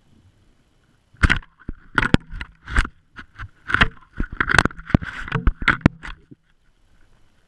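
Irregular knocks, clunks and scraping heard through an underwater GoPro housing as the camera, on a magnet-fishing rope, is jerked and dragged through the water. The knocks start about a second in, come a dozen or so times, and stop about six seconds in.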